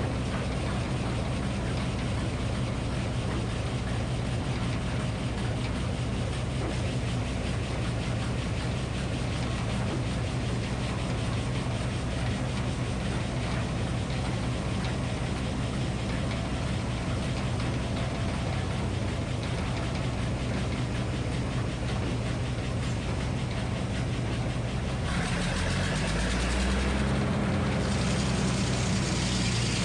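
Minneapolis Moline HEB 605-cubic-inch engine running steadily, driving the Frick circular sawmill. About 25 seconds in, the engine note changes under load and a loud hissing whir joins as the circular blade cuts into a red oak log.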